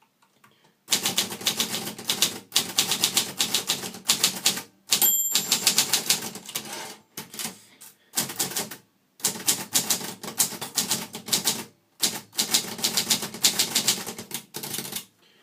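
Brother Deluxe 660-TR portable manual typewriter being typed on: quick runs of sharp key strikes broken by short pauses, with a brief ring about five seconds in.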